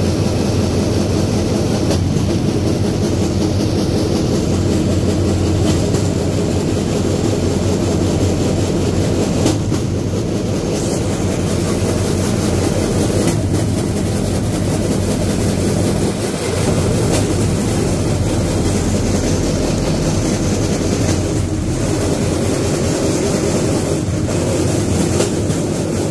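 Steel wheels of a pedal-powered rail bike rolling along railway track: a steady rumble with a few faint clacks, as over rail joints.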